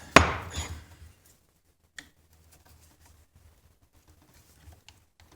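A sharp clatter of metal vise parts or tools being handled, dying away over about a second, then a few faint light clicks.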